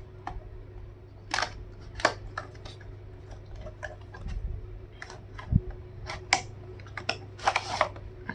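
A charger's retail box and packaging being unpacked by hand: scattered clicks, taps and short rustles, with a longer rustle near the end, over a steady low hum.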